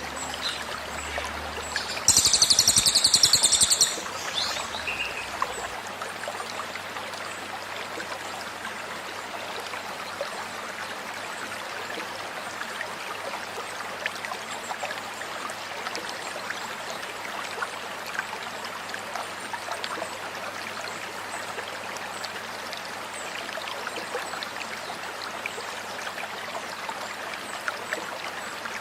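Stream water babbling steadily, with one loud, high, rapid burst of cililin songbird 'tembakan' song lasting about two seconds, about two seconds in.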